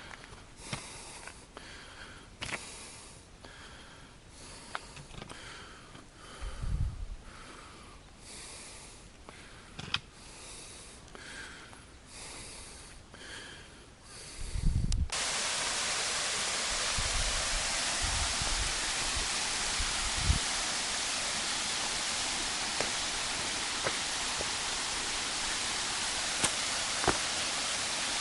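Soft irregular rustling with a couple of low bumps, then about halfway through an abrupt switch to the loud, steady rushing of a waterfall.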